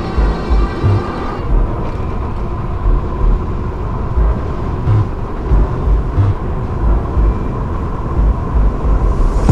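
Wind buffeting a microphone during an e-bike ride: loud, irregular low rumbling gusts over a steady rushing noise, with a faint steady tone.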